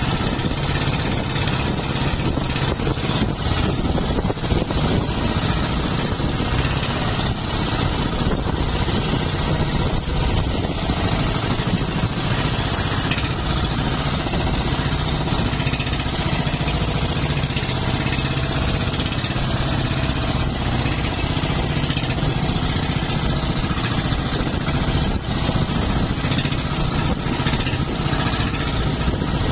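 Outrigger fishing boat's engine running steadily under way, mixed with wind and choppy sea noise. The boat is pushing against a strong monsoon wind.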